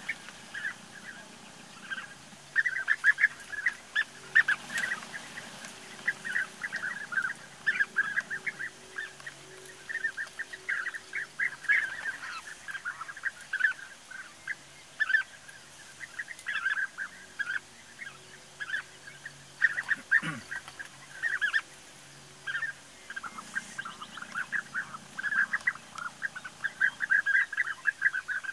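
European bee-eaters calling over and over: many short, rolling trilled calls in quick succession, several birds overlapping, over a faint low steady hum.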